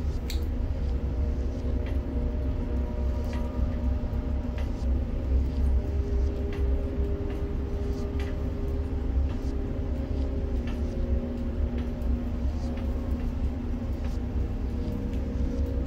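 Ship-to-shore container crane machinery running as a load is lowered: a steady low rumble with a drive hum whose tone shifts and strengthens around the middle, and scattered light clicks.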